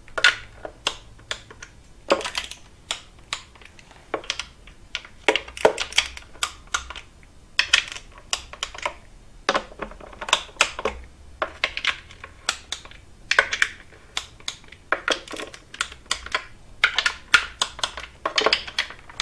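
Ratchet and torque wrench clicking in short quick runs as the timing cover bolts are run down and torqued to 45 inch-pounds, with brief pauses between bolts.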